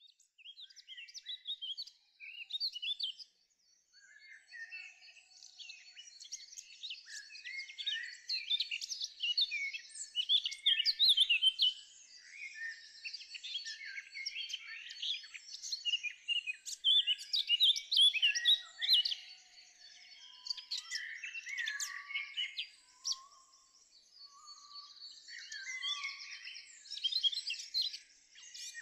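Birds chirping and singing together, a dense chorus of quick, overlapping chirps and trills with a few lower whistled notes about three quarters of the way through.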